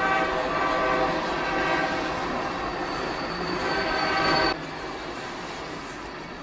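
Passing commuter train's horn sounding, strongest in the first second or so and again around four seconds in, over the rumble of the rolling train. The horn and rumble then drop off abruptly to a quieter rolling rumble.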